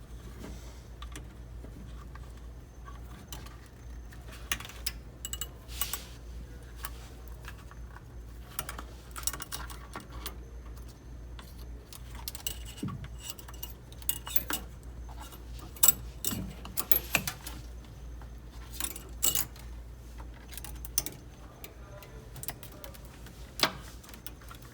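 Hands working wiring through a fender hole: irregular small clicks, light metallic clinks and brief rustles of wires, tape and a welding rod, over a steady low hum.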